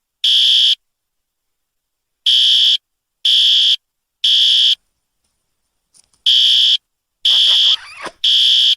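Fire alarm sounding in a temporal-three pattern: three high-pitched beeps about a second apart, then a short pause, repeating.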